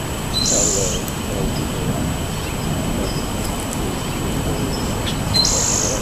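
A songbird giving a short, high call twice, about five seconds apart, over steady outdoor background noise.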